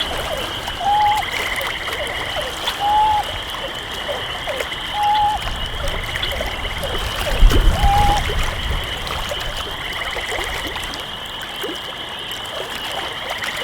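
Frog and insect chorus: a short, clear note repeats about every two seconds, five times, over a steady high trilling. A low thump comes about eight seconds in.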